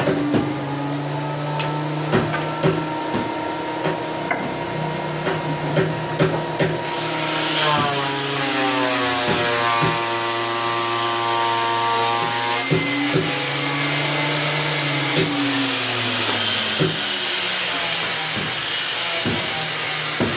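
Electric power tool running on wood, its motor pitch dipping and recovering several times as it is loaded, with scattered knocks.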